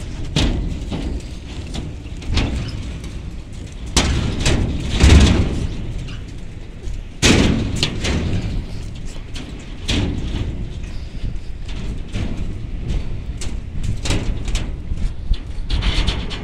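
Wind buffeting a phone's microphone as a heavy, uneven rumble, with irregular thumps and knocks, the loudest about five and seven seconds in.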